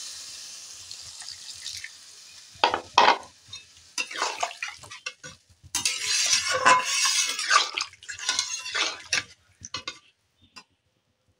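Sizzle of water just added to hot fried masala in a metal kadai, dying away over the first second or two, then a metal spatula stirring and scraping through the watery potato curry against the pan in irregular bursts, stopping near the end.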